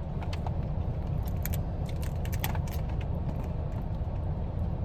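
Low steady rumble of a car idling, heard inside the cabin, with a scatter of small sharp clicks and crinkles about a second or two in from handling the seafood boil and its wrappings.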